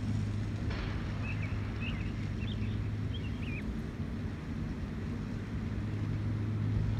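A run of short, high peeps from Canada goose goslings between about one and four seconds in, over a steady low hum and wind noise on the microphone.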